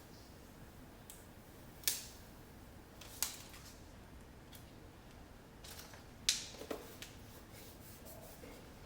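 A few sharp clicks and taps from objects being handled: three distinct ones about two, three and six seconds in, with fainter ticks between, over a faint room hiss.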